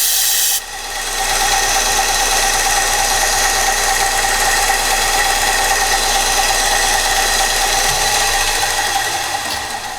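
Kalamazoo 1SM belt sander running with a steady whine; the hiss of a knife edge grinding on the belt cuts off a little over half a second in, as the blade comes off the belt. Near the end the sander is switched off and winds down.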